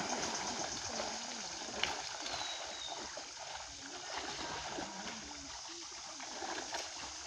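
Shallow muddy pond water sloshing and splashing as people wade through it hauling a seine net, with voices in the background. A single sharp tap sounds about two seconds in.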